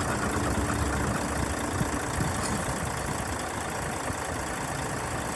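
Steady engine idling sound with a low rumble, like a truck's.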